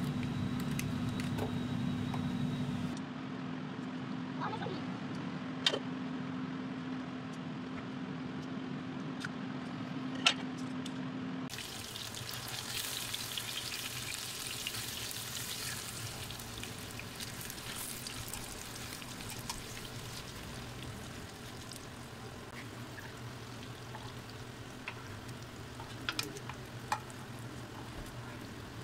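Kitchen cooking sounds: a steady low hum with a couple of sharp clicks, then from about 11 seconds in a hissing sizzle of food frying in a pan, with a few more clicks near the end.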